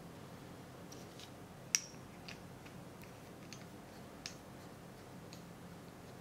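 Light clicks and taps of brass wax-seal stamp heads being set down on a wooden tabletop as the stamps are stood upright and handled, the sharpest tap just under two seconds in.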